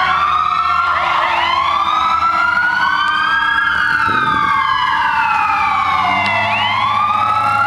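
Several fire truck sirens wailing at once, their slow rising and falling tones overlapping out of step with each other, over a low steady engine hum.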